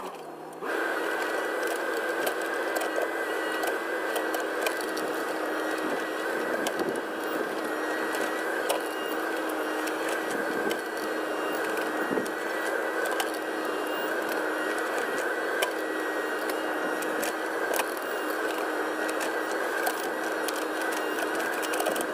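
Case 580 Super N backhoe's diesel engine and hydraulics running steadily under work, with a steady whine and scattered small clicks and scrapes. It starts about a second in.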